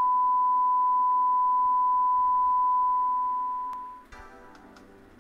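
Steady single-pitch line-up test tone accompanying colour bars, cutting off about four seconds in; quiet music with light ticks starts right after.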